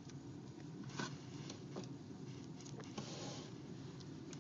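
Faint handling noises of packaging being opened: a few light clicks and taps, with a brief rustle about three seconds in.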